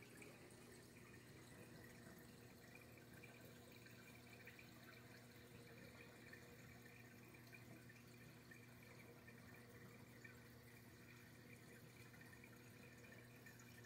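Faint, steady trickle of water with a low constant hum from a running reef aquarium.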